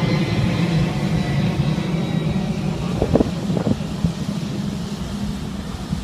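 Steady roar of the Lower Düden Waterfall plunging off a sea cliff into the Mediterranean, with a few brief sharper sounds about halfway through.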